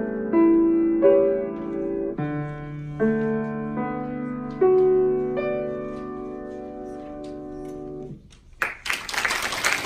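Grand piano playing the last phrase of a student recital piece, ending on a long held chord that is released about eight seconds in. Applause starts less than a second later and continues to the end.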